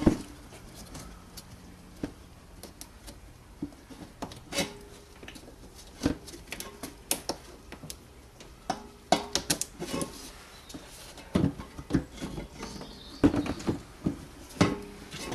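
Irregular clicks, taps and knocks of a plastic screen wash tank and its pump motors being handled and fitted, busiest in the second half.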